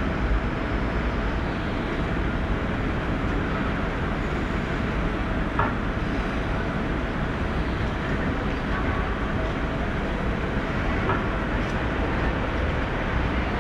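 Steady low rumble with a faint constant hum from vehicles standing at a tram stop, a Bombardier GLT guided tram waiting at the platform with its equipment running; a couple of faint clicks.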